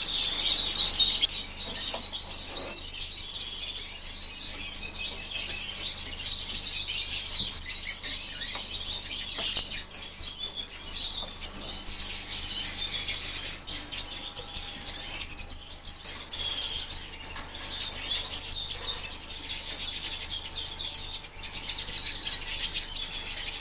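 Many young Fife canaries chirping and calling together in a flight cage: a dense, unbroken twittering of many overlapping high chirps.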